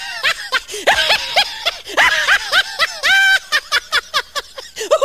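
High-pitched laughter, a fast string of short rising-and-falling 'ha' notes, loud and continuous, laid over a clip of a lion as a comic sound effect.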